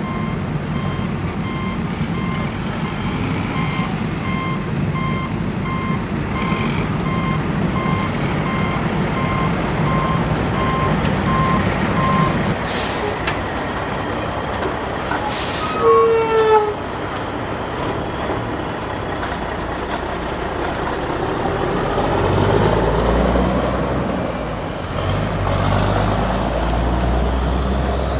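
Diesel dump truck reversing: its backup alarm beeps steadily over the engine, then stops. About 16 s in comes a short hiss with a falling squeal. Heavy diesel engine revving, rising and falling, through the last several seconds.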